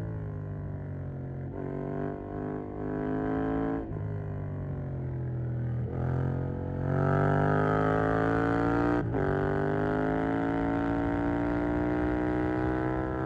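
Yamaha MT-07's 689 cc parallel-twin engine through a Mivv GP Pro stainless aftermarket exhaust, heard from a phone in the rider's pocket. The engine note falls as the bike slows, with brief breaks at gear changes, then rises about six seconds in as it accelerates. It gets louder, with another shift about nine seconds in, and pulls on.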